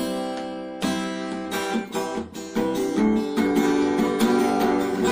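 Background music: chords strummed on a guitar at an even pace.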